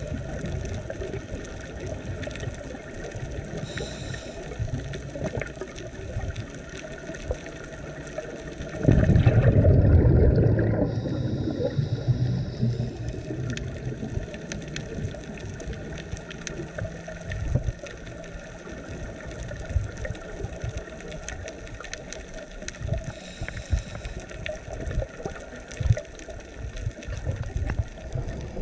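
Underwater sound heard through a camera housing: a scuba diver's exhaled regulator bubbles gurgling, loudest in a burst of about two seconds some nine seconds in, over a steady crackle of small sharp clicks from the reef.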